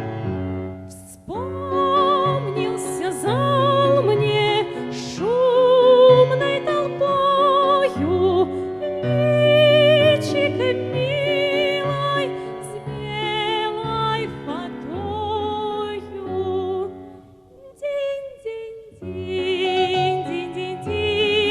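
A Russian romance sung in a classical operatic style, with strong vibrato and sliding attacks into the notes, over a piano accompaniment. There is a short break between phrases about three-quarters of the way through.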